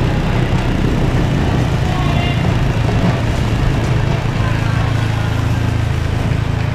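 ATV (quad bike) engine running steadily as it tows a roping dummy sled, a low even hum.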